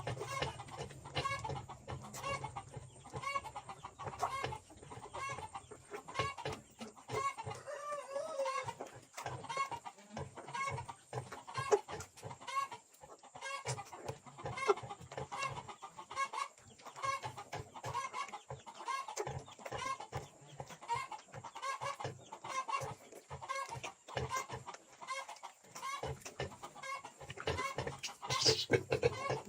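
Chickens clucking, a steady run of short calls several times a second.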